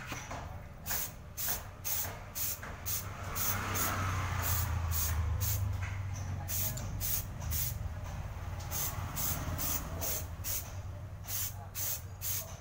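Aerosol spray-paint can hissing in many short bursts, about two to three a second in groups. A low rumble swells and fades in the middle.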